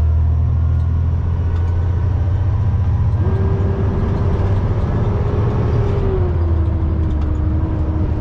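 Semi-truck's diesel engine running under way, heard from inside the cab as a loud, steady low drone. A steady whine joins about three seconds in and drops slightly in pitch a few seconds later.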